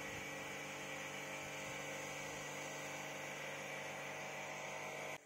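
Steady, even hum of a pressure washer's motor running while its jet sprays water, with no change in pitch; it cuts off abruptly at the very end.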